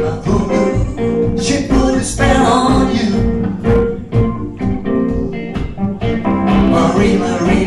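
Live band playing a song: electric guitar and piano with singing over a steady rhythm.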